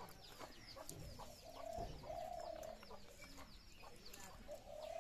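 Birds calling: a low call about half a second long comes several times, over many quick high chirps that fall in pitch.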